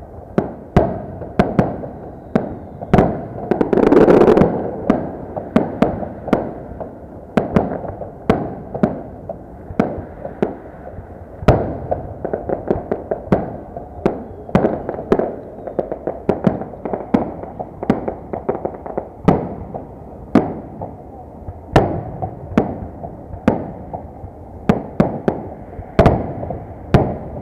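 Victory Day salute fireworks: an irregular run of sharp bangs from bursting shells, often several a second, with a louder, longer burst about four seconds in.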